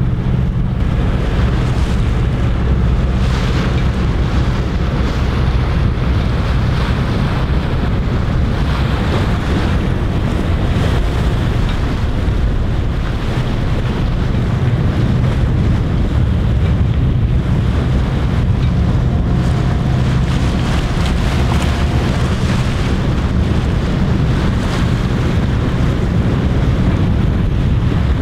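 Wind buffeting the microphone over a steady low engine drone from a boat under motor, with water rushing alongside.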